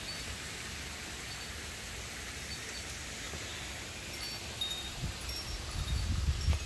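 Steady outdoor background hiss with a few faint, short high tinkling notes about four to five seconds in. Low rumbling on the microphone near the end.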